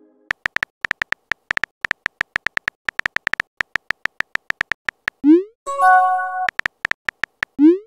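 Phone keyboard tap sounds from a texting app, about seven taps a second, as a text message is typed. About five seconds in comes a short rising whoosh as the message is sent, then a short chime of several tones, a few more taps, and another rising whoosh near the end.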